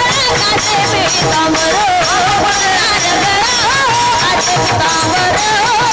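Devotional kirtan singing: a voice carries a gliding, ornamented melody over percussion keeping a steady beat, with jingling strokes high up and drum strokes low down.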